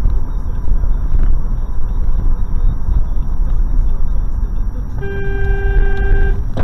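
Steady road and engine rumble of a moving car, with a car horn blown once near the end and held for about a second and a half.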